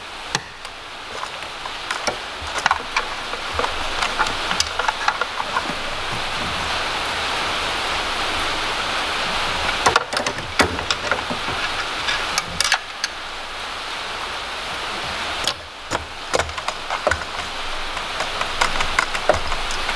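Steady rain noise, with scattered small clicks and knocks of hands working plastic breather tubes and clips under the hood.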